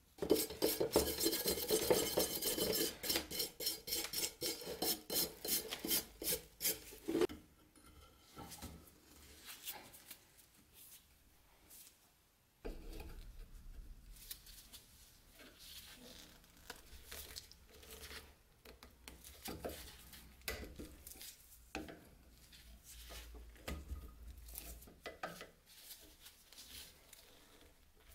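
Flat-blade screwdriver scraping flaking rust off a steel knife blade held in a vise, metal grating on metal. Fast, dense scraping for the first seven seconds or so, then quieter, scattered scrapes.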